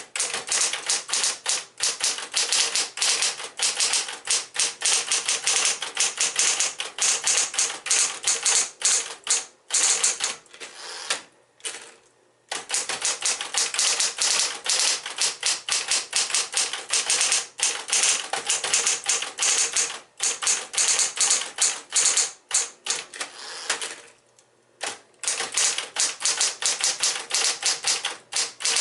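Smith-Corona Electra 120 electric portable typewriter typing: rapid runs of key strikes, broken by short pauses about eleven seconds in and again about twenty-four seconds in.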